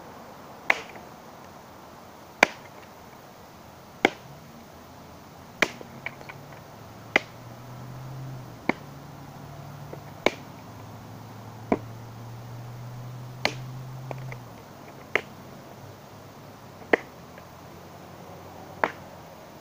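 A stick striking something hard, about a dozen sharp cracks at a steady pace of roughly one every one and a half seconds. A low hum sits underneath for several seconds in the middle.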